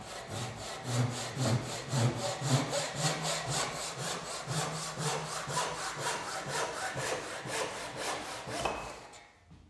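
Tenon saw cutting across a small block of wood in quick, even back-and-forth strokes; the sawing stops shortly before the end.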